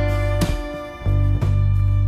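Instrumental background music: a plucked guitar piece over steady low bass notes.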